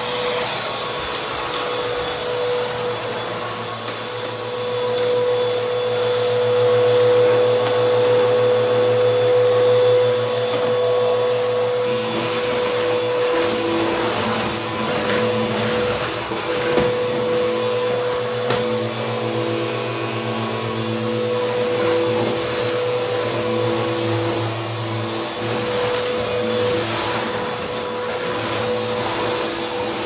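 A Bissell vacuum cleaner running steadily over carpet, its motor holding one steady tone, with scattered crunchy crackles of grit and debris being sucked up.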